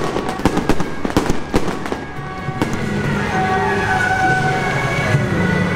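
A string of firecrackers popping in rapid, irregular cracks, which thin out and stop about two and a half seconds in. Held, reedy wind-instrument notes then take over.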